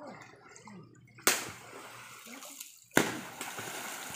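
River water struck hard twice, about a second and a half apart, each a sharp slap followed by spattering spray: the surface beaten to scare fish into a net.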